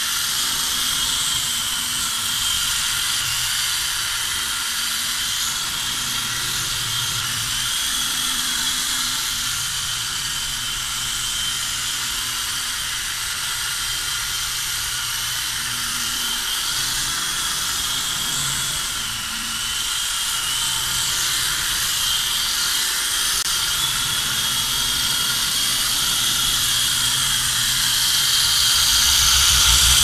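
Syma S107G remote-control helicopter in flight: its small electric motors and rotors give a steady high-pitched whine that wavers slightly in pitch. Near the end it gets louder, with a low rumble as the helicopter comes close to the microphone.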